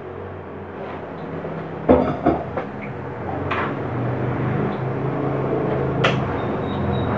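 A frying pan set down on a gas range's grate with a knock about two seconds in, then handling knocks and a sharp click about six seconds in as the burner is turned on, over a steady low hum that grows louder from about four seconds in.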